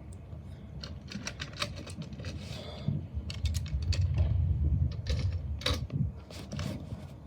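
Irregular clicks and light knocks of small toys being handled, over a low rumble.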